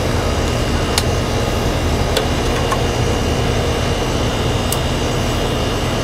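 Steady running hum of an outdoor air-conditioning condensing unit, its fan and compressor going, with a few light clicks.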